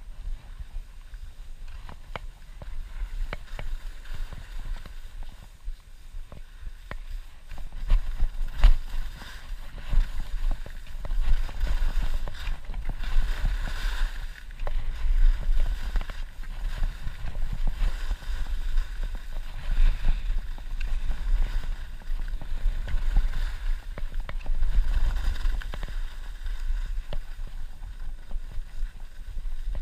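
Skis sliding and scraping over packed snow on a downhill run, the hiss swelling and fading in waves, with heavy wind rumble on the microphone and occasional sharp clicks.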